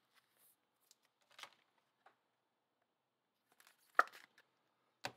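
Trading cards being handled: faint rustles and light clicks, with a sharp tap about four seconds in and another just before the end.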